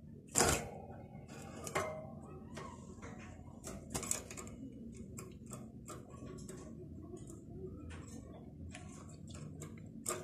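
Scattered light clicks and taps from a European goldfinch moving about its wire cage and perches. The loudest tap comes about half a second in and another near the end, with fainter ticks between.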